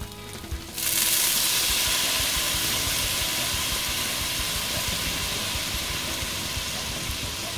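Orange juice hitting a hot pan of oil, garlic and broccoli: a sudden loud hissing sizzle about a second in, slowly fading as the liquid boils.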